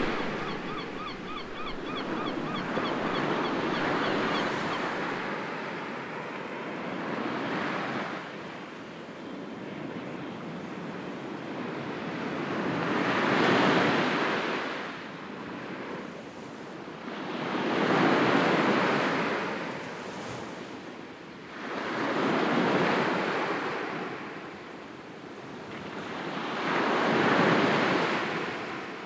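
Sea waves breaking and washing back, swelling and fading in slow surges about every four to five seconds. A faint repeated high chirping is heard in the first few seconds.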